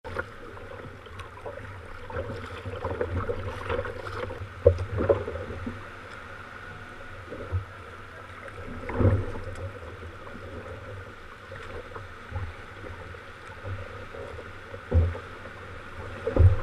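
Sea kayak being paddled through choppy water: steady splashing and lapping of water against the hull, with irregular louder splashes.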